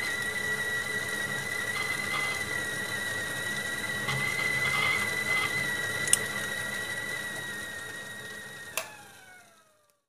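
Stovetop whistling kettle whistling with one steady high tone as the water boils. Near the end there is a sharp click, and the whistle slides down in pitch and dies away.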